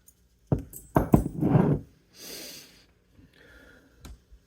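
A man sniffing hard through his nose, taking in a fragrance he has just opened. There are loud breathy sniffs about a second in, then a fainter high hiss.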